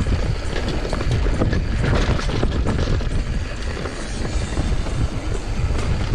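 YT Tues downhill mountain bike riding fast down a dirt trail: tyres rolling over dirt and roots, with the chain and frame rattling and knocking over bumps. Wind rumbles on the GoPro's microphone.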